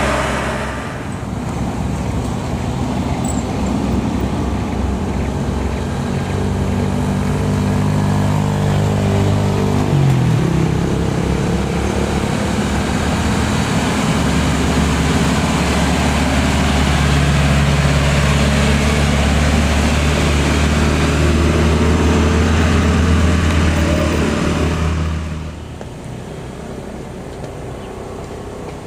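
Diesel engines of light trucks running under load as they climb a steep grade. The engine note shifts about ten seconds in and then holds steady, and the sound drops sharply about 25 seconds in.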